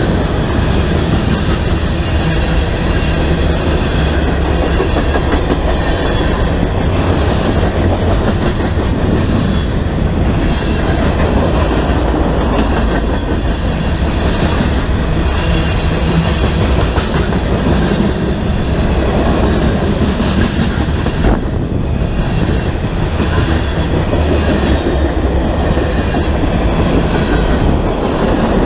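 BNSF freight train rolling past, a steady loud noise of steel wheels running on the rails that holds without a break.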